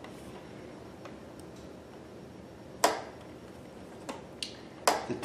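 Two sharp clicks about two seconds apart, with a couple of fainter ticks between them, over a low steady room hiss: hands working at a sewing machine.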